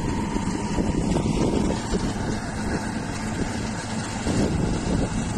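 Combine harvester running steadily as it cuts wheat, a constant engine drone, with wind buffeting the microphone.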